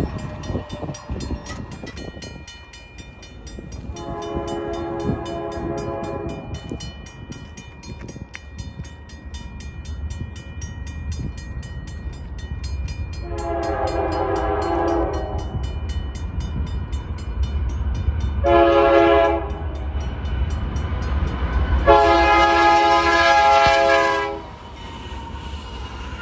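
BNSF freight locomotive horn sounding the grade-crossing signal: two long blasts, a short one, then a final long one. Under it the crossing-gate bells ring steadily at about four strikes a second, and the low rumble of the approaching diesel locomotives builds toward the end.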